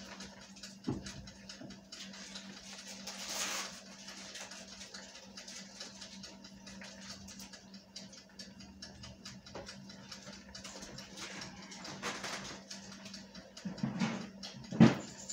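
Steady low hum of a running kitchen appliance, with faint scattered ticks and a few soft knocks and clatters; the loudest knock comes just before the end.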